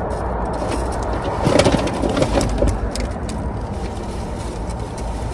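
Eating sounds: soft chewing clicks and rustles of a bagel sandwich being handled and bitten, clustered a second or two in, over a steady low rumble.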